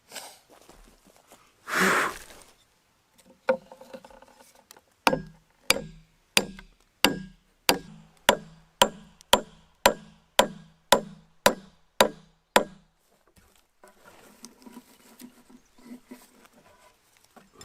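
A hard tool stroke scraping across wood about two seconds in, then a steady run of about fourteen sharp knocks of a striking tool on wood, a little under two a second, each with a short low ring.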